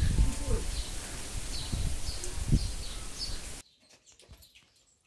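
Birds chirping over and over above a low, uneven rumble of outdoor noise. The sound drops suddenly to much quieter about three and a half seconds in.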